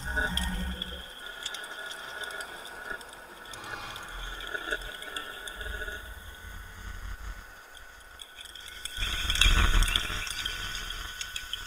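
Sparse ambient soundscape of scattered small clicks and drips over a faint hiss and a low rumble, the rumble swelling louder about nine seconds in.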